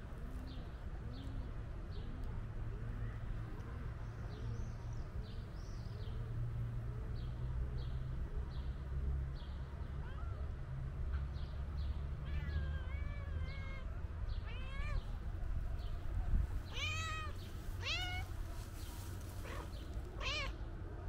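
Calico cat meowing, a few calls in the second half and three loud meows close together near the end.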